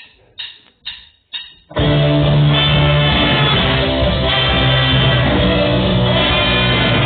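Live rock band's count-in: four evenly spaced clicks about half a second apart, then the whole band comes in loud with guitar and drum kit.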